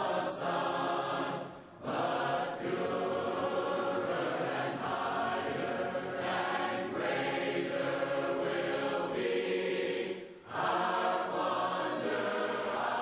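A choir singing, phrase after phrase, with short breaks between phrases about two seconds in and again about ten seconds in.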